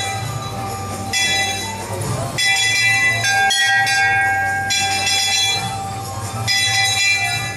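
Bells ringing in repeated bouts of a second or two, each starting and stopping abruptly, over a steady low hum.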